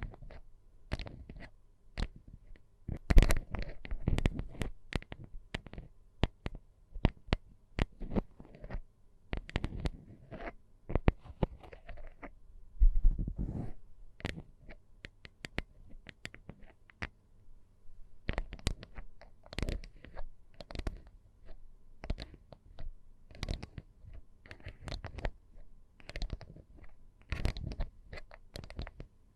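Irregular close-up ASMR tapping and scratching: many quick, sharp taps with crackly rubbing in between, and louder stretches of rubbing about three seconds and thirteen seconds in.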